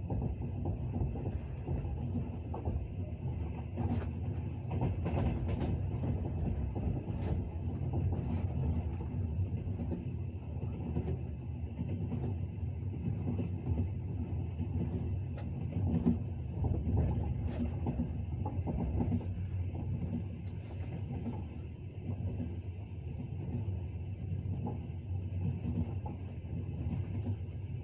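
Train running, its wheels clattering over the rails: a steady low rumble with irregular sharp clicks and knocks, the loudest about halfway through.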